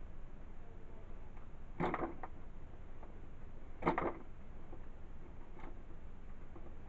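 Cardboard retail box being handled while someone tries to open it: two short scraping rustles about two seconds apart, the second the louder, with a few faint clicks after.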